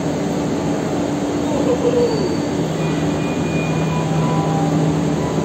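Escalator running: a steady mechanical drone with a low hum from its moving steps and drive.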